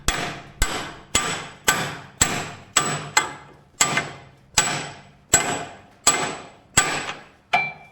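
Hammer striking steel: about thirteen ringing blows at a steady pace, a little under two a second, driving a bolt through so that it sticks out the far side.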